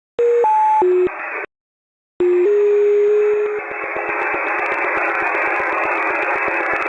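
Shortwave radio receiver audio in upper sideband: three short stepped tones one after another, a second-long break, then a steady low whistle-like tone over hiss confined to the narrow voice band. A fast, even ticking of interference runs under the tone.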